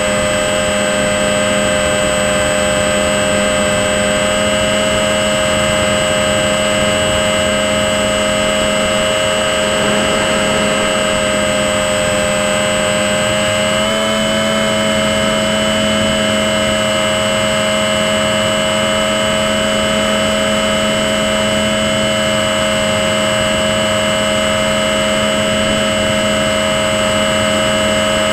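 Motor and propeller of a small RC model plane in flight, heard from a camera mounted on the plane: a steady whine with several pitches over a rushing hiss, stepping up slightly in pitch about halfway through.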